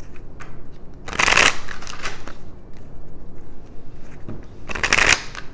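A deck of tarot cards being shuffled in the hand, in two short rushes of card noise: one about a second in and one near the end, with light card clicks between them.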